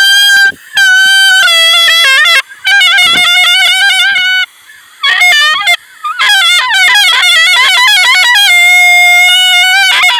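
Music: a single trumpet-like wind-instrument melody, loud, played in phrases with short breaks, its notes bending and sliding.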